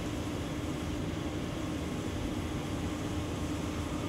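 Steady background hum and hiss with a faint constant tone, and no distinct events.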